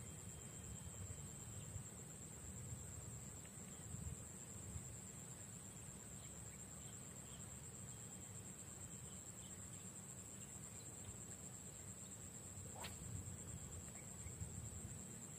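Faint, steady high-pitched insect chorus, with a low rumble underneath and a few faint short chirps. A single brief sharp sound comes about thirteen seconds in.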